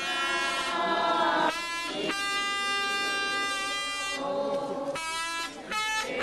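Wind instruments playing a slow processional tune in long held notes, turning to shorter notes near the end.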